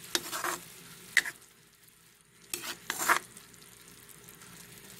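Spatula stirring and scraping sautéing tuna around a frying pan in a few short bursts, over a faint sizzle.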